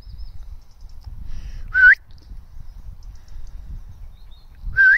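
A handler's whistled commands to a working sheepdog: two short, loud whistle notes about three seconds apart, one under two seconds in and one near the end, each dipping slightly and then rising sharply.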